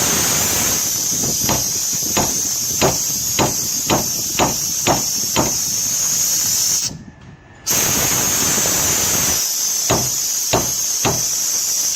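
Loud steady hiss of air or gas under pressure, cutting off briefly about seven seconds in and then starting again. Over it come light sharp taps on metal about twice a second, a run of about ten in the first half and three more near the end.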